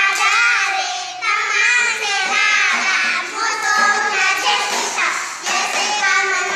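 A group of young children singing a chant together in high voices, the sung rhyme of a traditional circle hand game.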